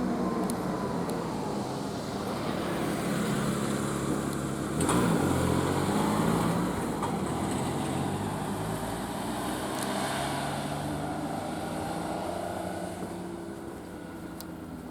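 A vehicle running, with a steady hum of several low tones; a sudden louder noise about five seconds in, after which the hum drops in pitch, and the sound fades a little near the end.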